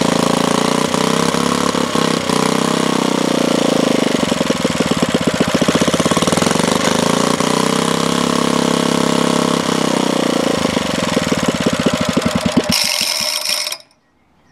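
Restored Villiers Mk7/1 four-stroke stationary engine running unloaded, its speed slowly rising and falling twice, with spells where the separate firing beats stand out. Its ignition points plate is set hard towards retard, the only setting where the owner could get it to run. The sound cuts off abruptly near the end.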